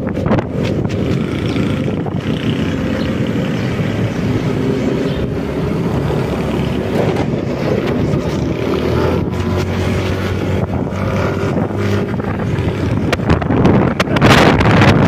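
Wind buffeting the microphone of a moving motor scooter, over the steady hum of its engine and road noise; a stronger gust comes near the end.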